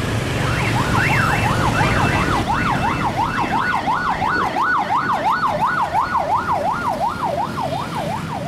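Electronic siren in fast yelp mode, the pitch sweeping rapidly up and down about three times a second, over a low rumble of street traffic.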